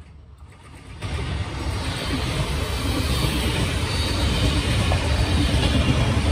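Passenger train passing close by, its coaches' wheels rumbling on the rails. The sound swells suddenly about a second in and keeps getting louder as the ÖBB Class 2016 diesel locomotive pushing at the rear draws near.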